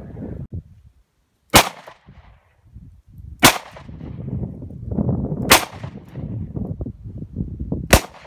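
Four handgun shots from a stainless revolver, about two seconds apart, each a single sharp crack, with a low rumble between them.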